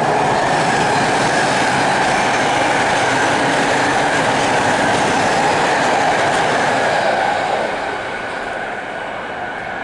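A passing train: loud, steady rail noise that eases off about eight seconds in.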